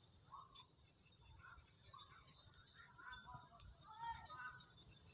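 Faint evening insect chorus: a steady high-pitched drone with a rapid, even pulsing chirp, and a few faint short calls scattered underneath.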